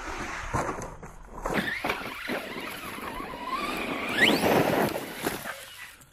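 RC stunt truck's electric motor whining, its pitch rising and falling with the throttle and climbing sharply about four seconds in, over tyres scrabbling on loose gravel and a few sharp knocks as the truck lands.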